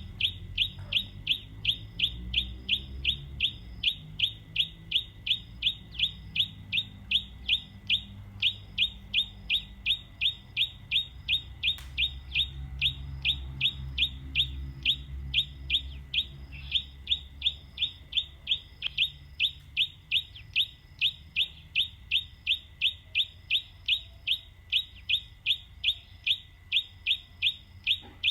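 A bird repeating the same short, high chirp over and over, very evenly, about twice a second, with a faint low rumble beneath.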